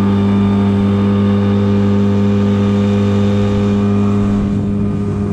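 Small boat's outboard motor running under way at a steady pitch and speed.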